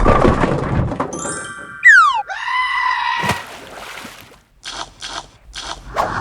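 A rapid string of dubbed-in sound effects: a loud noisy crash at the start, a falling whistle about two seconds in, a held, wavering cry just after it, a sharp click, then several short hissing bursts near the end.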